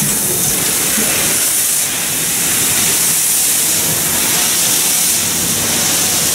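Steady, loud hiss of steam from the C58 class steam locomotive C58 363.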